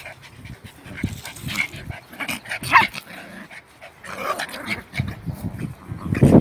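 German Spitz mother and puppy tussling, with short yips and whimpers among rustling, and one brief high yelp falling in pitch about three seconds in.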